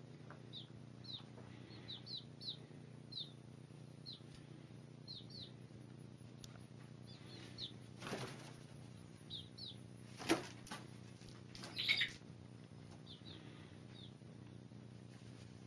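Young chickens peeping in short, high chirps, one every half second or so, with a few brief louder rustles in the middle as they shift about.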